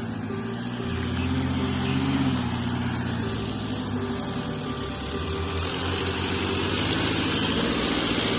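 Mitsubishi jeep's 4DR5 four-cylinder diesel engine running, its note rising a little about a second or two in and then settling. A hiss grows louder over the last couple of seconds.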